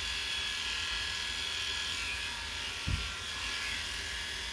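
Electric dog-grooming clippers fitted with a 7F blade running steadily, reverse-clipping a Bedlington Terrier's neck and shoulder coat. A brief low thump comes about three seconds in.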